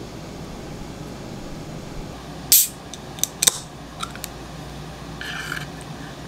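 A can of Milkis carbonated soda being handled and opened: a brief loud hiss-like burst, several sharp clicks of the can and its tab, and a short fizzing hiss near the end.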